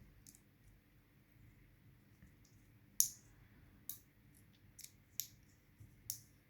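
Very thin metal lock shim clicking as it is worked in around the plug of an old Winkhaus 5-pin cylinder. There are about half a dozen sharp little clicks in the second half, the loudest about three seconds in.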